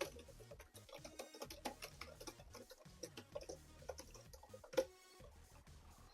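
Irregular run of short, close-up ASMR clicking sounds with a few rapid rattling strings of clicks and one louder click about three-quarters of the way through, over soft background music.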